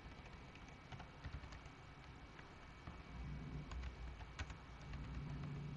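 Faint computer keyboard typing: scattered, irregular key clicks. A low hum joins in about halfway through.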